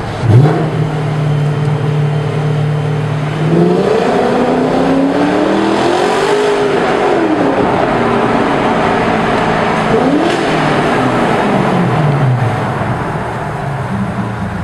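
BMW 545i's 4.4-litre V8 through a custom exhaust with an X-pipe and two Cherry Bomb glasspack mufflers, no resonators or stock muffler, heard in a road tunnel. A sharp rev blip just after the start, then steady revs. About three and a half seconds in the pitch climbs under acceleration, peaks and falls away. A second, shorter climb comes near ten seconds and dies down.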